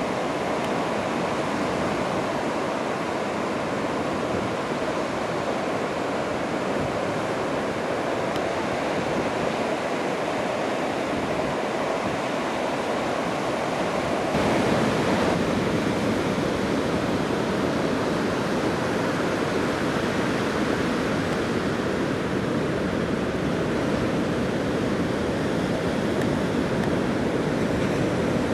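Ocean surf breaking and washing, a steady rush of noise that swells louder about halfway through.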